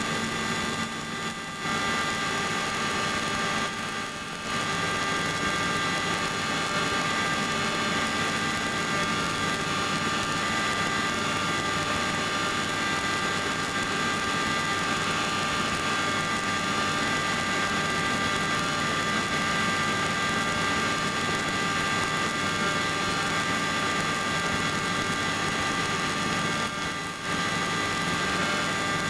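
Small helicopter's engine and rotor running with a steady drone, heard from inside the cabin, dipping slightly in level a few times.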